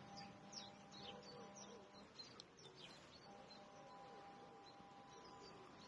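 Near silence with faint birds chirping.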